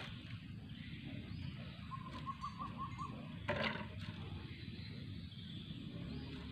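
Outdoor ambience with a steady low rumble, over which an animal gives a short run of about six quick high chirps about two seconds in. A single sharp knock comes a little after halfway.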